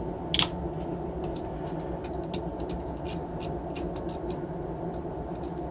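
Light clicks and scrapes of a long screwdriver working the star screws in a brushless motor's metal end cap, with one sharper click about half a second in, over a steady machine hum.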